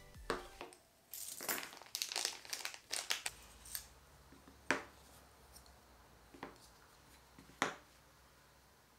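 Small plastic parts bags crinkling and rustling as they are handled and opened. Then a few separate sharp taps as hard carbon-fibre frame parts and hardware are set down on the desk mat, the loudest about halfway through and again near the end.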